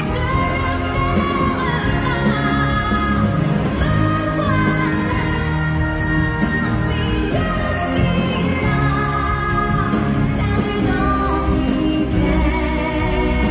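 A woman singing with full backing music, played over the arena's sound system for an ice-skating number.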